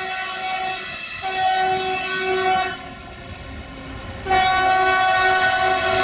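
BR232 'Ludmilla' diesel locomotive sounding its horn: one steady-pitched blast ending about a second in, a second from just after that to under three seconds, then a louder blast starting suddenly about four seconds in and holding.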